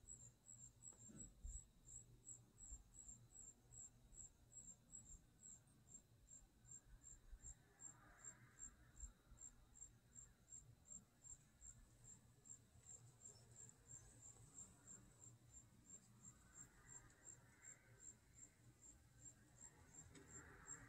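A cricket chirping faintly, a steady train of short high-pitched chirps at about two to three a second.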